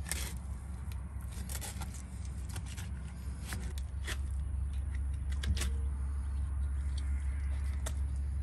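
Knife filleting the backstrap loin off a gar: scattered small clicks and scrapes as the blade works along the fish's back, over a steady low rumble.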